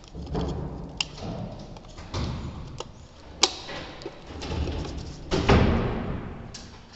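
Plastic wall plate being handled and pressed into place over a wall keypad: rubbing and scraping that swells and fades several times, with a sharp click about a second in and another about three and a half seconds in.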